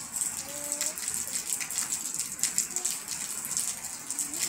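Steady rain falling: a constant hiss with many scattered louder drops and splashes. A few short, faint pitched calls sound over it.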